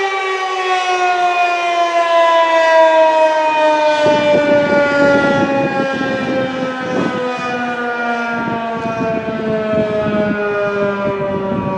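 Federal Signal 2001-SRN outdoor warning siren sounding its Attack signal, one loud tone whose pitch falls slowly and steadily throughout. A low rumble joins underneath about four seconds in.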